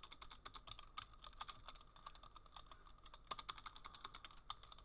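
Computer keyboard being typed on: a quick, irregular run of faint keystrokes as a command is entered.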